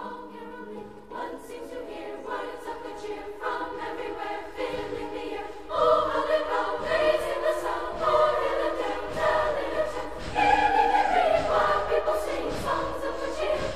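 Choral music: a choir singing a Christmas carol, swelling noticeably louder about six seconds in.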